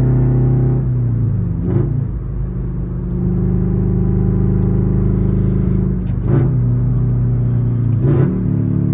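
A car's engine and exhaust running at a steady pitch while driving. The pitch drops about two seconds in and changes again twice later on.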